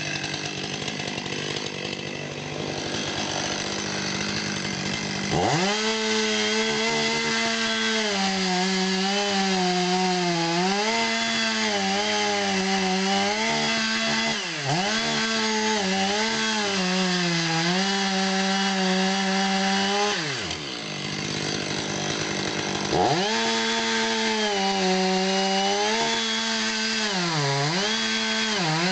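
Stihl MS500i two-stroke chainsaw cutting wood. About five seconds in the saw is opened to full throttle and its pitch wavers and dips as the chain bites; it eases off about twenty seconds in and is opened up again a few seconds later.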